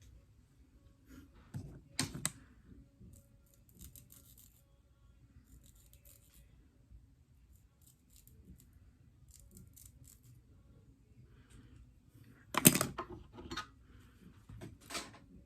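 Small hair tools being handled: light clicks, snips and scrapes, with a sharp knock about two seconds in and a louder clatter of knocks near the end.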